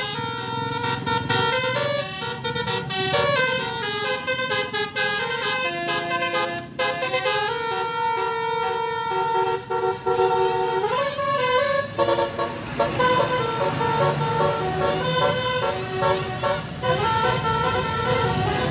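Telolet basuri multi-tone musical horn playing a tune of stepped notes over low engine rumble.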